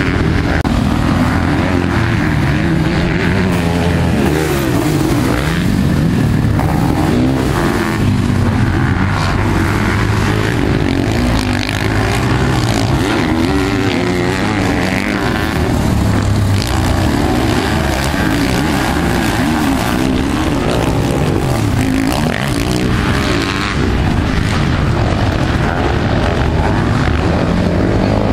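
Several motocross engines, sidecarcross outfits and solo off-road bikes, running together on a dirt track, their revs rising and falling as they accelerate and back off.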